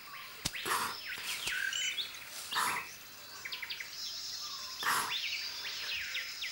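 Wild birds calling in short, falling whistled notes over a steady high insect hum, with a few brief rustles.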